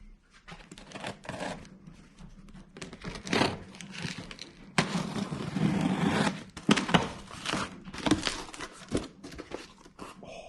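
A cardboard parts box being opened by hand and its packing material handled: a run of irregular rustling and scraping noises, loudest about five to seven seconds in.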